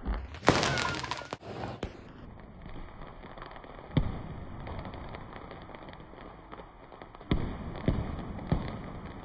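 Aerial fireworks going off: a loud, dense crackling burst in the first two seconds, a single sharp bang about four seconds in, and three more bangs in quick succession near the end.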